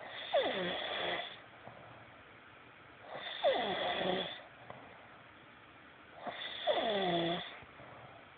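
Snoring: three snores about three seconds apart, each lasting about a second with a falling pitch, and quieter breathing between them.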